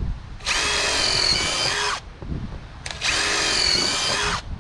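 Power drill run twice, each time for about a second and a half, its motor whine sagging in pitch near the end of each run.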